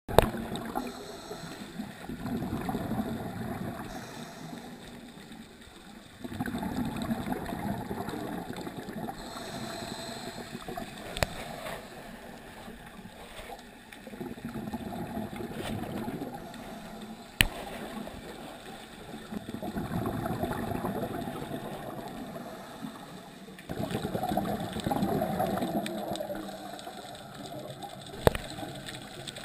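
Scuba diver's regulator breathing heard underwater: gurgling bursts of exhaled bubbles that swell and fade every five to six seconds, with a sharp click twice.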